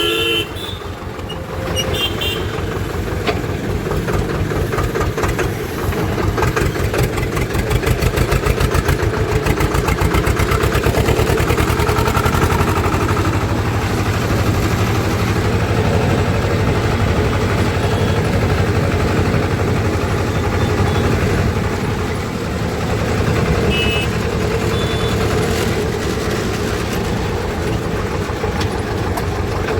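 Swaraj diesel tractor engine running with a steady, rapid chug that gets louder about seven seconds in.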